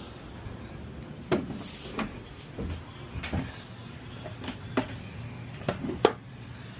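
A series of irregular knocks and clunks, about seven, spread over several seconds, the loudest near the end, from a new tire and tools being handled at the tire changer.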